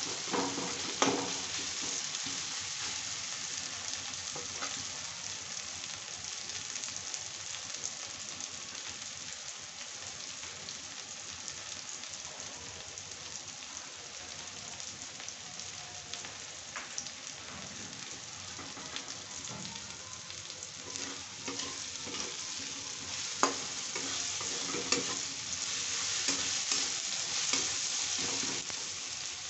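Sliced onions and tomato sizzling in hot oil in a kadai, with a steady hiss. A flat metal spatula stirs them, scraping and knocking against the pan about a second in and several times near the end.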